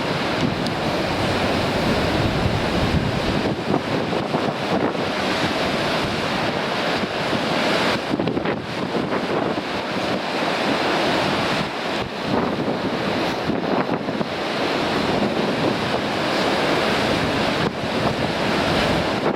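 Surf breaking on rocky shore under strong wind, a continuous rushing noise that swells and eases, with wind buffeting the microphone.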